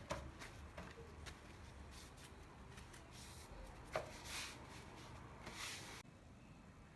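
Faint food-preparation handling noises: scattered small clicks, a sharper tap about four seconds in, and a few short rustles, stopping at about six seconds.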